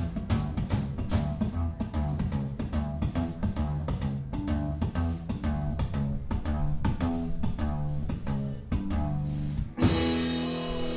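Live band playing an instrumental passage with a fast, even rhythm over moving bass notes, then hitting a final chord about ten seconds in that rings out and slowly fades as the song ends.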